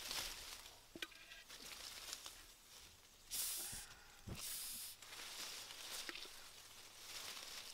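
Leaves and twigs rustling as a hand reaches through the foliage of a tree branch, with a few small snaps and two short, louder rustling swishes about three and a half and four and a half seconds in.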